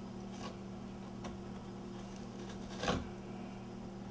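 A few faint light scrapes and one louder short knock, about three seconds in, from a hand tool working Bondo filler at the bottom of a wooden door jamb, over a steady low electrical hum.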